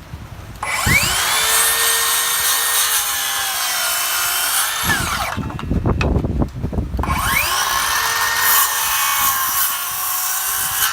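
Hitachi C3607DA 36-volt brushless 7 1/4-inch cordless circular saw making two cuts through wood. Each cut starts with a rising whine as the blade spins up, then a steady whine with small dips under load for about four seconds, then winds down. Knocks of the wood being handled come between the two cuts.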